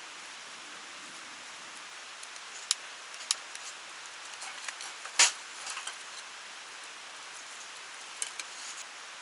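Steady rushing of a clear mountain stream and waterfall, with a few sharp clicks and one louder knock about five seconds in from something being handled at camp.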